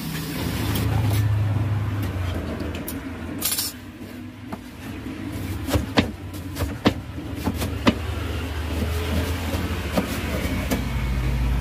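A cleaver chopping through a crisp fried martabak telur onto a wooden cutting board: a series of sharp chops in the middle. A low engine hum sits under it at the start and again near the end.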